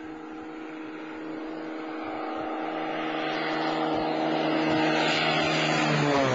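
Cessna AgTruck crop-spraying plane's piston engine and propeller droning as it flies in low. The drone grows steadily louder, and its pitch drops as the plane passes overhead near the end.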